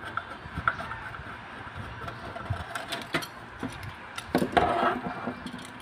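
Screwdriver and metal parts ticking and scraping against the wire terminals of a window aircon compressor's capacitor as the wires are worked loose, over a steady background noise. A louder clatter of handling comes a little past four seconds in.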